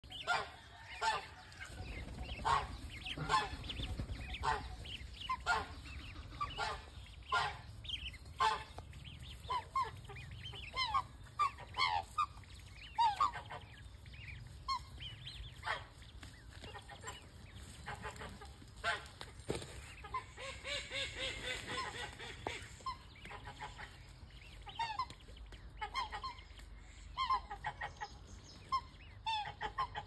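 A family of black swans calling, with short pitched calls repeated about once or twice a second.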